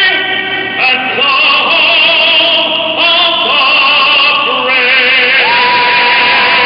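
A woman singing the national anthem in an operatic style with wide vibrato, holding long notes and rising to a long high note near the end.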